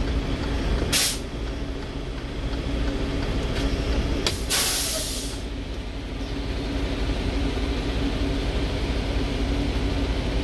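Diesel engine of a 2020 Freightliner truck running steadily, heard inside the cab, with a brief hiss of air about a second in and a longer hiss from the air brakes a little after four seconds in.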